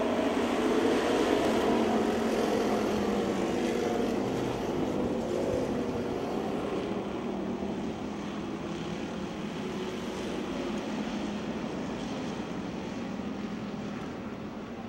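A pack of dirt-track stock cars racing together on a clay oval, many engines running at full throttle at once. The sound gradually fades as the field moves away.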